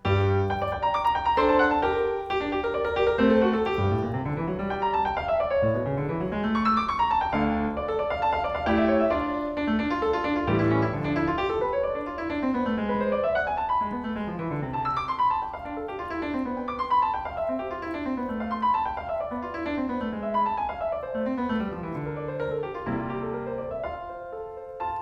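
Background music: solo classical piano playing fast running scales that rise and fall over and over.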